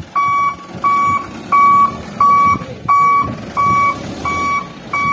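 Dump truck's reversing alarm beeping steadily, about eight even beeps in a little over five seconds, over the low run of the truck's diesel engine as it backs up to tip its load.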